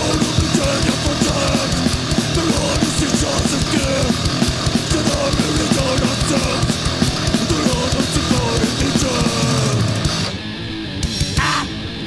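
Fast, heavy hardcore punk record (powerviolence/crust/grindcore) with distorted guitar and pounding drums. About ten seconds in, the sound thins to a short, quieter break.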